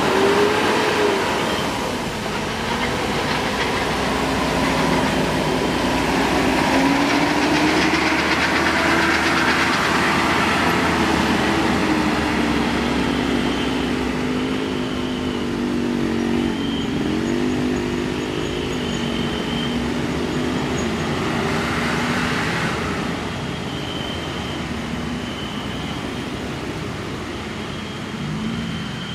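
Tour bus passing close with its telolet multi-tone air horn playing held and shifting tones over the running diesel engine. A short high tone repeats in the second half.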